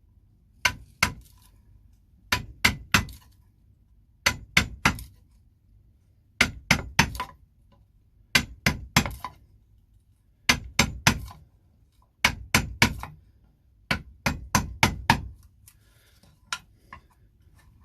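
Wood chisel being struck repeatedly to chop out a recess in a wooden block: groups of three to five sharp strikes, a group about every two seconds, growing faint near the end.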